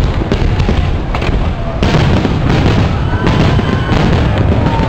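Fireworks display: a dense run of bangs and crackling bursts over a constant low rumble of booming shells.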